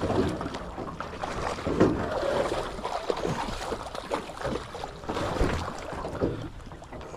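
Water sloshing and splashing around a small boat, with irregular knocks and bumps against the hull.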